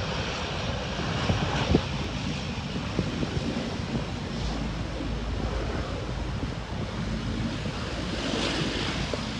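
Wind buffeting the microphone over the distant, steady noise of a Dash 8 twin-turboprop airliner's engines as it rolls along the runway.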